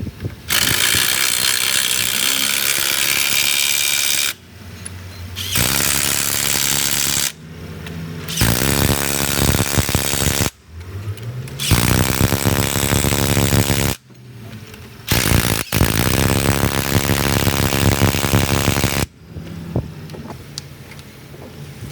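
A power tool running in five bursts of a few seconds each, with short pauses between; in some bursts the pitch rises as it speeds up at the start.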